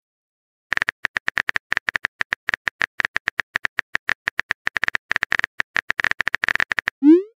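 Texting-app keyboard sound effect: rapid, uneven tapping clicks as a message is typed out, ending with a short rising swoop as the message is sent.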